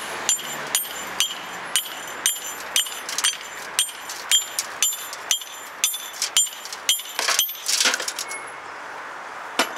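Hand hammer striking a steel cold chisel held against stone and mortar, about two blows a second, each blow a sharp clink with a metallic ring. About seven seconds in the blows give way to a longer gritty noise, and one more blow lands near the end.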